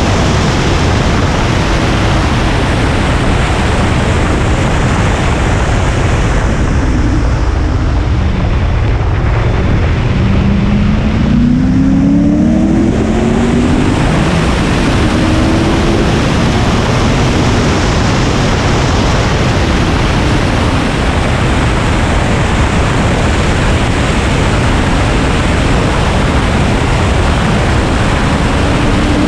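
Car at track speed, heard through strong wind rush over an exposed hood-mounted microphone. The engine note shows faintly beneath the wind, rising under acceleration a few times.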